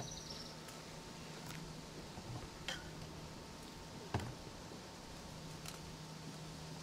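Quiet background with a faint steady low hum and a few scattered soft clicks. There is a sharp click with a short high ring at the very start, and a knock-like click about four seconds in.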